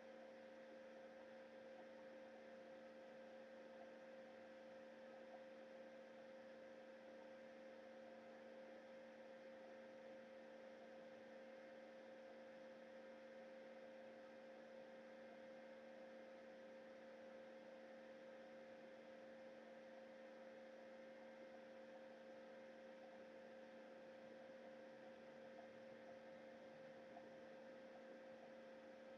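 Near silence with a faint, steady electrical hum and whine that never changes, typical of a recording device's own electronic noise.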